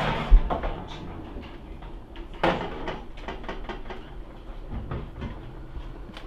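Metal baking tray pulled out of a gas cooker's oven and set down on the stove top, with a series of metallic clatters and knocks; the loudest clank comes about two and a half seconds in, and a few lighter knocks follow near the end.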